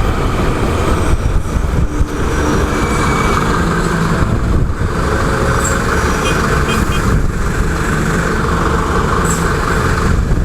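Honda CG 150 Fan motorcycle engine running steadily under way, mixed with heavy wind noise on the microphone. The bike runs with an aftermarket air filter and its intake hose removed, which the rider says gives it a much stronger growl.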